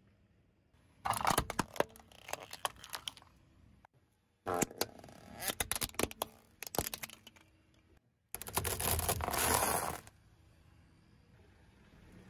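Car tyre rolling over and crushing brittle objects on asphalt: three separate bursts of crunching and cracking, each one to three seconds long, full of sharp snaps.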